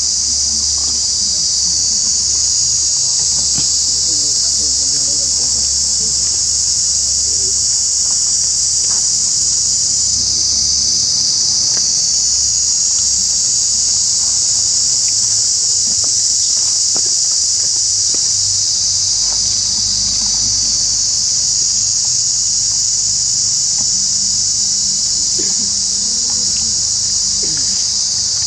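Dense insect chorus: a loud, steady, high-pitched drone that runs without a break.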